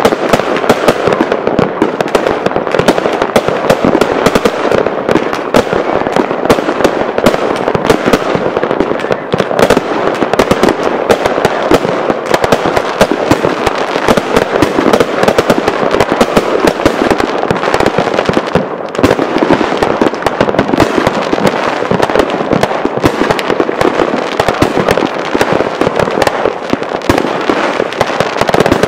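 Aerial fireworks bursting without a pause: many shells going off at once, their overlapping bangs and crackles running together into one continuous barrage.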